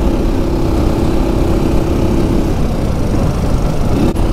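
Motorcycle engine running steadily while riding, with heavy wind rumble on the microphone. The engine note fades about halfway through and rises back up near the end.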